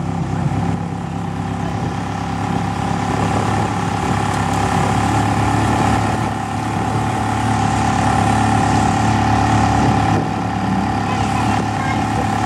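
Ferrari 360 Challenge Stradale's 3.6-litre V8 idling steadily.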